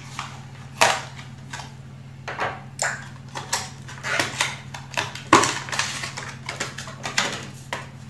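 Irregular clicks, taps and short rustles of hands handling a new WD Green SATA SSD and its packaging, over a steady low hum; the sharpest clicks come about a second in and just past the middle.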